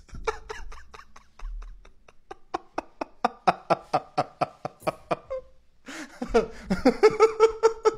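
A man laughing hard in a long run of quick pulses, about four or five a second. After a brief pause about five and a half seconds in, the laughter comes back louder.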